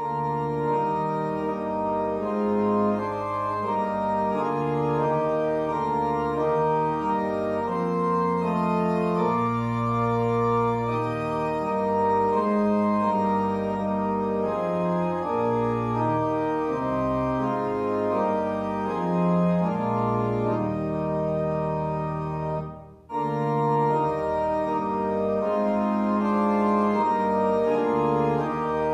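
Organ music: held chords and moving lines played steadily, with a brief break between phrases about three-quarters of the way through.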